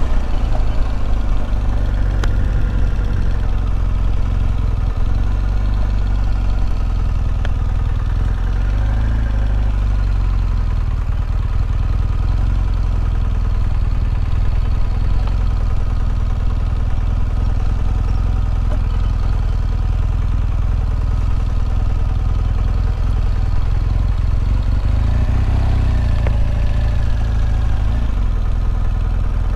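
Adventure motorcycle engine running steadily at low speed on a dirt track, its revs rising and falling briefly a couple of times.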